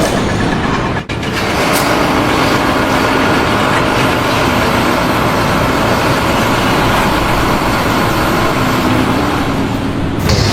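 Loud, steady mechanical rumble and noise like a heavy vehicle's engine running, with a brief dropout about a second in.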